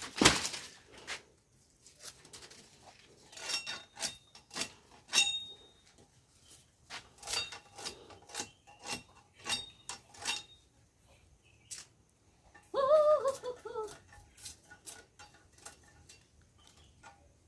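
Panga chopping sugarcane: a series of sharp chops and knocks, some with a brief metallic ring from the blade. About thirteen seconds in, a short pitched call lasting about a second.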